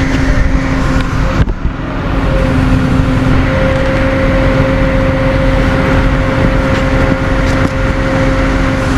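Tow truck running steadily under load with a constant pitched hum as its winch pulls a car up onto the bed. The sound dips briefly about a second and a half in, then holds steady.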